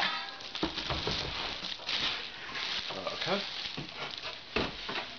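Clear plastic bag wrapping crinkling and cardboard box scraping as a boxed appliance is pulled out of its carton, with a few dull knocks of it against the box and table.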